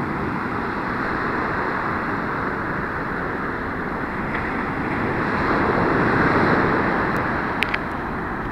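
Ocean surf breaking and washing up a sandy beach, a steady rushing that swells louder past the middle as a wave comes in. A couple of short clicks near the end.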